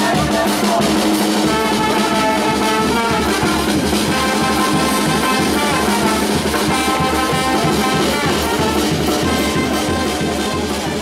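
Charanga street band playing live: trombones, trumpets, a baritone horn and a sousaphone over a bass drum with mounted cymbal and a snare drum, keeping a steady beat.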